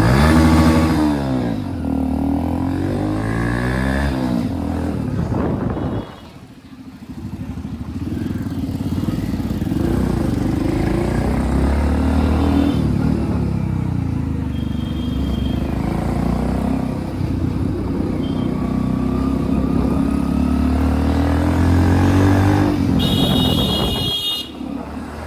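Modified Hero Splendor motorcycle's single-cylinder four-stroke engine running loud through an aftermarket RX silencer while riding, the revs rising and falling with the throttle. The sound drops off sharply about six seconds in, then builds again.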